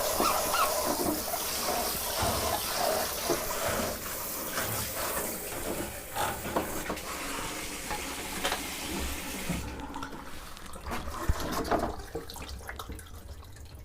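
Water running from a shower, with small scattered knocks, stopping about ten seconds in; a few knocks follow.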